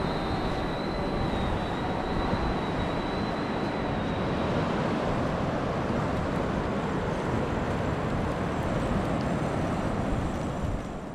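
Steady rush of surf and wind noise on the camera's microphone, with the high whine of a fishing drone's propellers fading away over the first few seconds as it flies out.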